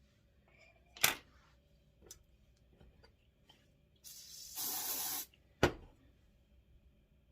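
A short spray of hair product, a hiss lasting just over a second about four seconds in, between two sharp clicks, one about a second in and one just after the spray.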